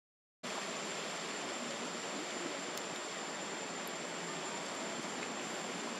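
Steady outdoor ambience: an even hiss with a thin, steady high whine running through it, after a split-second dropout to silence at the very start.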